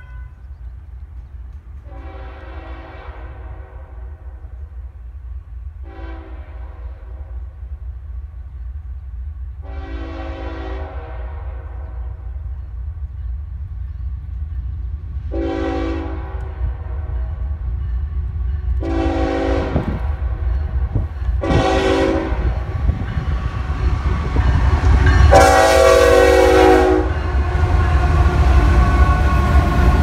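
Diesel freight locomotive's multi-chime air horn sounding seven blasts, long and short, each louder than the last as the train approaches, over a steadily rising rumble. Near the end the train passes close and the freight cars roll by loudly.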